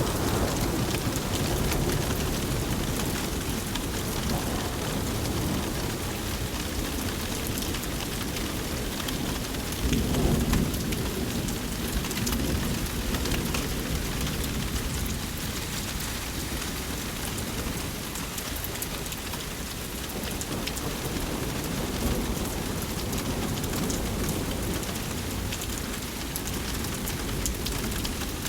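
Thunderstorm: steady rain falling on surfaces, with a low rumble of thunder swelling about ten seconds in.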